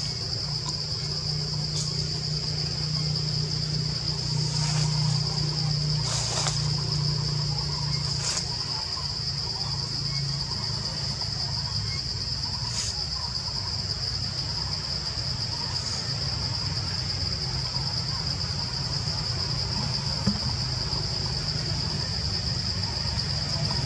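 Steady, high-pitched drone of insects calling in the trees, with a low steady hum underneath and a few faint clicks.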